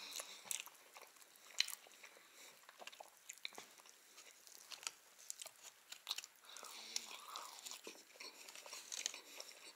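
A person chewing and biting into a crusty baked casserole, with small crunches and wet mouth clicks, while pieces of the crust are broken off by hand.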